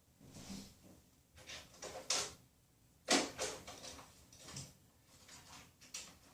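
Rummaging: a string of short knocks and clatters of objects being moved and handled, the loudest about three seconds in.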